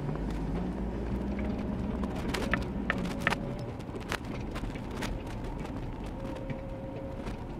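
Car engine running while driving over a rough dirt road, heard from inside the cabin, its pitch rising slightly near the start. Several sharp knocks and rattles from bumps in the unpaved track.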